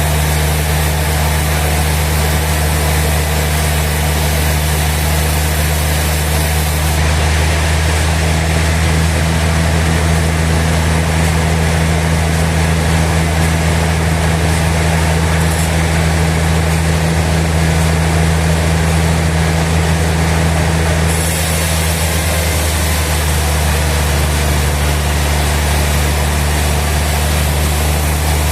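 Sawmill machinery running with a steady, loud engine-like drone and low hum, with no sign of speech. The drone is a little louder and duller in the middle section.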